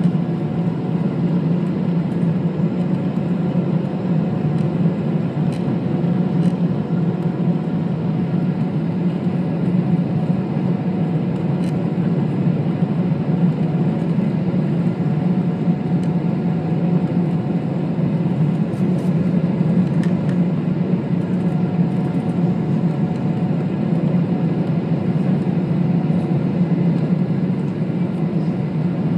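Steady cabin noise of a Boeing 777-300ER on approach with its flaps extended, heard beside the wing: a low, even drone of the GE90 engines and the rush of air, with faint steady tones above it.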